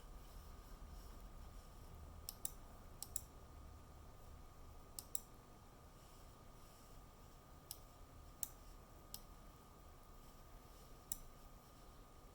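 Gigabyte GTX 1660 Ti Windforce graphics card making faint, irregular clicks like a hard drive seeking, often in close pairs, over a steady faint high tone while its fans spin. It is an electrical noise, not ordinary fan noise, which the owner takes for a fault in the card.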